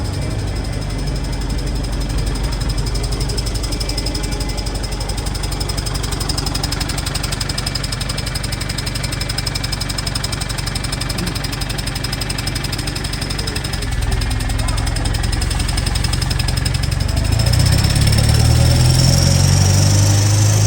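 Wright StreetLite bus running with a loud, unexplained noise: a steady low drone under a thin, high, steady whine. It gets louder about two-thirds of the way in and again near the end, where the whine rises slightly. Its cause is unknown to the owner.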